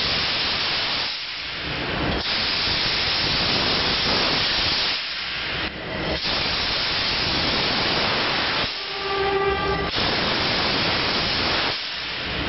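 Optima Steamer steam wash machine's hand wand jetting steam onto a car bumper: a loud, steady hiss in long bursts that break off briefly as the trigger is let go. A short whistling tone comes about nine seconds in.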